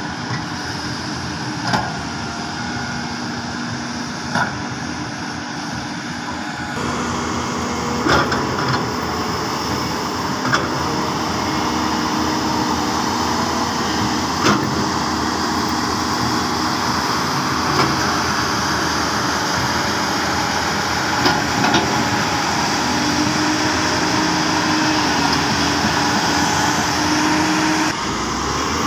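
Hyundai crawler excavator's diesel engine running steadily under load as it digs, with hydraulic whine and several short, sharp clanks spread through.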